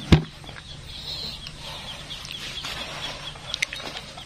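A plastic cooler lid shutting with a single sharp knock just after the start, followed by birds calling faintly in the background.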